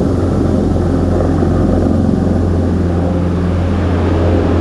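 Helicopter in flight: a loud, steady engine and rotor drone with a deep hum and a few steady pitched tones above it.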